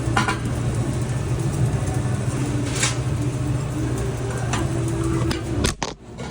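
An engine running steadily, a low drone with a few sharp clicks over it, dropping away briefly near the end.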